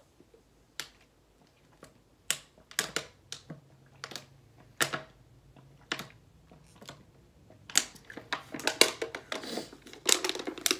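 Thin plastic water bottle crackling and crinkling as it is drunk from and squeezed in the hand: a scattering of sharp clicks that grows denser near the end.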